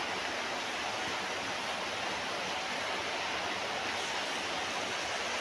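Heavy rain falling, a steady even rushing hiss.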